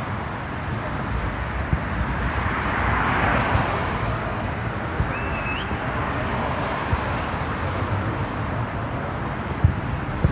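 Steady outdoor background noise like traffic, with a few short, dull low thumps and a brief rising whistle about five seconds in.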